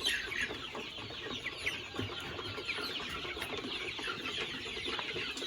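A pen full of young chickens, about seven weeks old, calling all at once. Many short, high peeps and clucks overlap in a continuous chatter.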